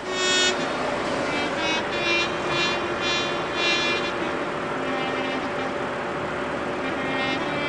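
An Audi A8 saloon driving slowly up a paved driveway and coming to a stop. A high, pitched tone repeats about once a second over it.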